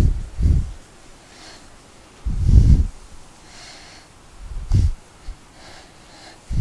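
Cloth duster being rubbed across a whiteboard: four dull, low rubbing bursts a second or two apart, the longest and loudest a little past two seconds in.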